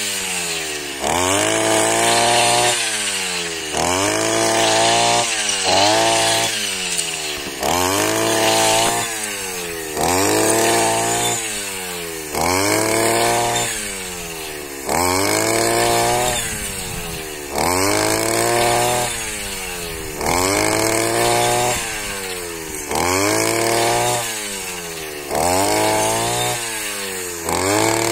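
Petrol backpack brush cutter cutting tall grass, its engine revving up hard and dying back again and again, about every two seconds: a quick rise in pitch, then a slower fall.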